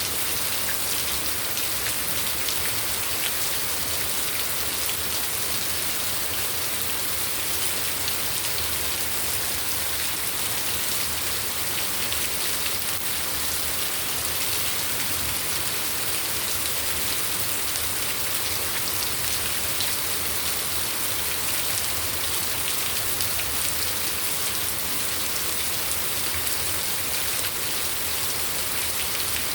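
Steady rain falling, a continuous hiss of drops with fine patter on surfaces, unchanging in strength.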